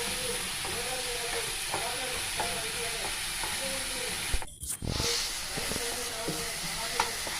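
Onion-tomato masala sizzling in hot oil in a kadai as it is stirred, with a few light clicks of the spoon against the pan. The sound drops out briefly a little past halfway.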